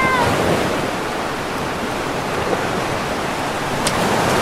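Beach surf: a steady wash of breaking waves. A child's voice sounds briefly at the very start, and there is one sharp click near the end.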